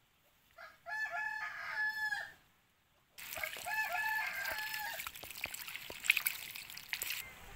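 Rooster crowing twice, each crow about a second and a half long. The second crow comes over a steady hiss with scattered clicks, which runs on for a few seconds after it.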